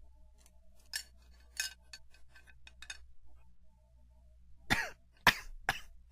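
Scattered short clicks and knocks, then a short cough-like throat sound with a falling pitch about three-quarters of the way in, followed by two more sharp clicks.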